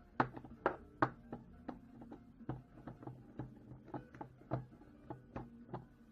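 Sharp, irregular knocks and clicks of the hard plastic housing of a cordless screwdriver being handled and taken apart, about two or three a second, the loudest three in the first second.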